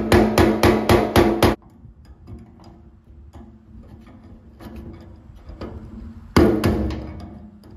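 Hammer striking a screwdriver set against the steel lock ring of a Jeep CJ5 fuel sending unit, tapping the rusted ring round to loosen it. A fast run of about eight ringing metal blows, some five a second, comes first, then a few more blows near the end.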